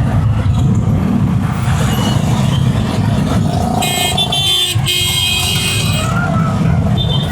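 Steady rumble of road traffic and engine noise while riding, with a vehicle horn honking twice about four seconds in, the second honk longer.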